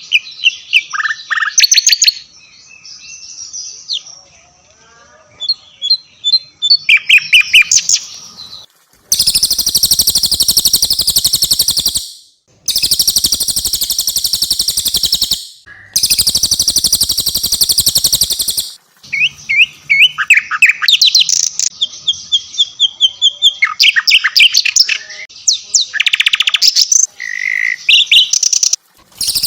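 Cililin and sikatan londo songbirds singing: high, quick chirps and twittering phrases, broken about a third of the way in by three long, very fast rolling trills of about three seconds each.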